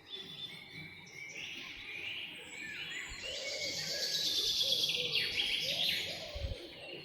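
A chorus of wild birds chirping and trilling, with many rapid high calls overlapping. It grows busier and louder from about three seconds in.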